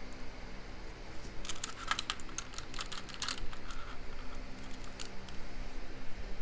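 A quick cluster of small sharp clicks and taps of metal tools against the lock's small metal parts during disassembly, about a second in, followed by a few scattered clicks.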